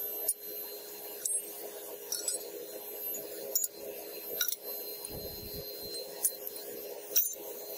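Old brass taps and pipe fittings clinking against each other and the metal tray as they are handled and dropped into a crucible: about seven sharp, ringing metallic clinks over a steady low background hum.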